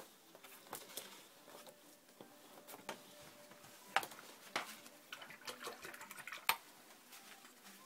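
A few light, sharp clicks and taps with faint watery sounds: watercolour painting tools being handled, a brush rinsed and tapped against a water container.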